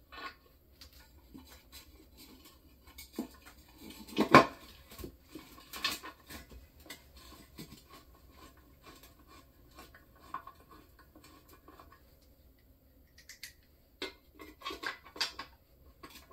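Scattered light metallic clinks and knocks from hand work at the bellhousing of a 4L60E automatic transmission, with one sharper knock about four seconds in and a quick run of clicks near the end.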